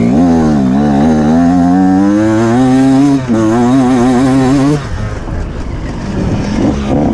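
Off-road motorcycle engine running hard under load, its pitch wavering as the revs rise and fall. It dips briefly about three seconds in, then drops to a quieter, rougher note near the middle.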